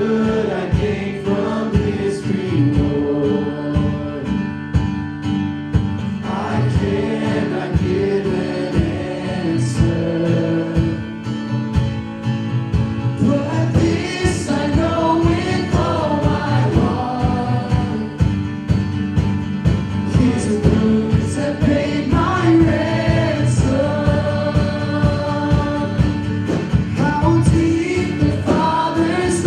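Live worship band music: acoustic guitar and keyboard chords with voices singing over them.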